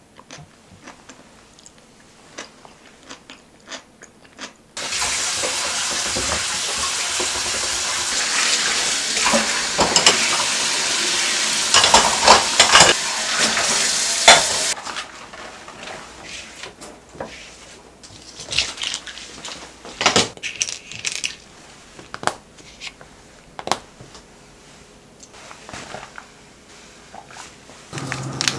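Tap water running into a kitchen sink for about ten seconds while dishes are washed, with bowls and plates clattering under it. Before the water, a few light clicks of a spoon in a bowl; after it cuts off, scattered clinks of dishes set into a stainless wire dish rack.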